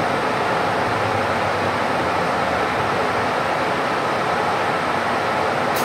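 Steady engine and road noise heard inside a city bus on the move.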